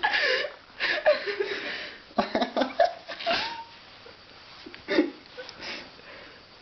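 People laughing while someone is being tickled, in several bursts of high-pitched laughter over the first three and a half seconds and a couple of shorter ones about five seconds in.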